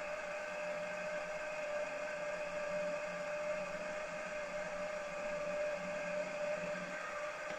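Milling machine's spindle motor running steadily while a tapping drill cuts a small tapping hole in a casting, giving a constant whine with overtones and a low hum.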